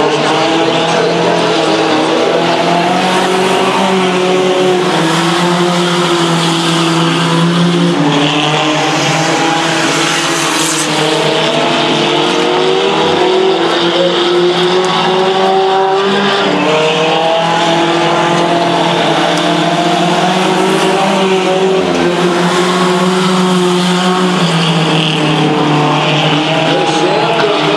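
Several mini truck race trucks' engines running hard at racing speed, their overlapping pitches repeatedly rising and falling as the trucks accelerate down the straights and lift for the turns.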